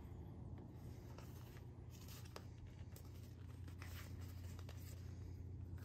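Faint scattered clicks and rubbing of hard plastic as a bike water bottle's lid is twisted and its valve is pushed and pulled, which locks pretty hard. A steady low hum runs underneath.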